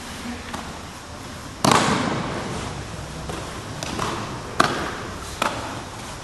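A body landing on the exercise mat in an aikido throw and breakfall about one and a half seconds in, the loudest sound, with a short rustling tail. Two sharp slaps on the mat follow near the end.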